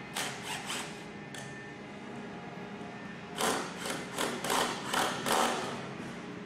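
Hand-tool work on a cedar log chair: a few quick rasping strokes right at the start, then five or six more from about halfway in, over a steady background hum.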